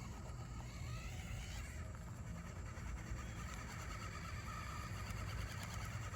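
Injora 50-turn brushed motor and gear drivetrain of an Axial SCX24 Deadbolt micro crawler whining at low throttle as it crawls over an obstacle: a thin, wavering whine that gets stronger about halfway through, over a low rumble.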